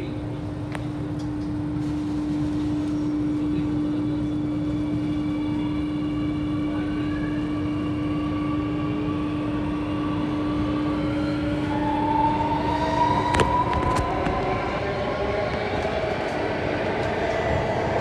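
Alstom Metropolis C830C metro train pulling away and speeding up. Several whines from the electric traction rise steadily in pitch over a rumble, while a steady hum stops about two-thirds of the way through. Two sharp clicks come just after the hum stops.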